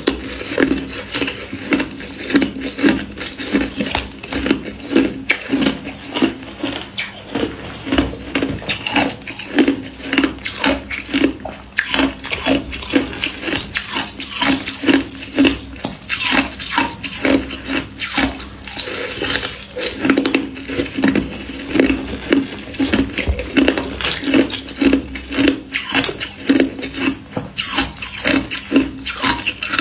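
Thin ice being bitten, chewed and broken apart close to the microphone: a dense, continuous run of crisp cracks and crunches, several a second.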